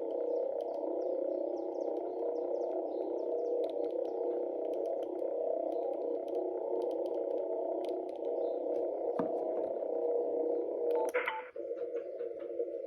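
Unidentified interference on the 40-metre amateur band, heard through a shortwave receiver: a dense, steady buzzing noise held in a narrow band of pitches. About 11 seconds in there is a brief sharper burst, after which the noise carries on slightly narrower.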